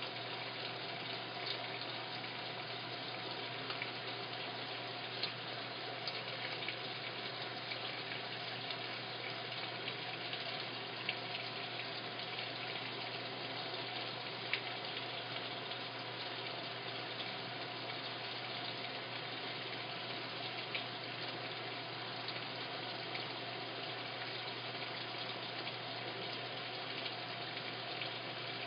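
Washing machine filling with water: a steady rush of water flowing into the drum through the inlet valve, over a low hum, with a few faint ticks.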